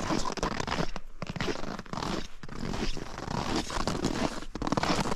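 Footsteps crunching on packed snow: a continuous run of scratchy crunches broken by a few short pauses.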